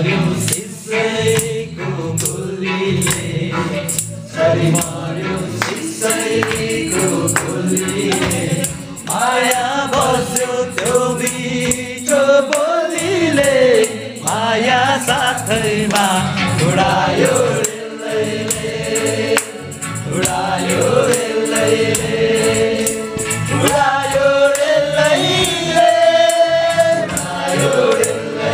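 A group of men singing a song together, several voices at once, over a beat of sharp strikes.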